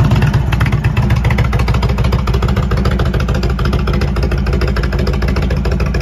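A 2021 Indian Chieftain's air-cooled V-twin idling right after starting. It is loudest as it catches and settles within the first second into a steady, even, low-pitched idle.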